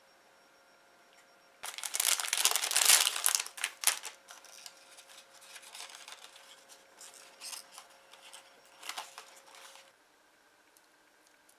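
Clear plastic packaging crinkling loudly for about two seconds as an alphabet cookie stamp set is taken out, followed by lighter rustling and small clicks of the plastic letter pieces being handled.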